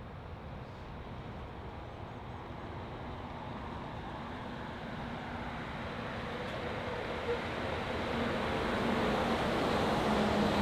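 Walt Disney World Mark VI monorail train running along its overhead concrete beam: a steady rumble with a low hum that grows louder as the train approaches and passes.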